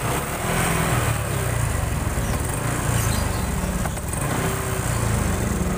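Honda Supra X 125 FI's single-cylinder four-stroke engine idling with an uneven, limping beat. The spark plug has been checked and the ECU reset without curing it, no fault code shows, and the mechanic suspects wrong cam-chain timing.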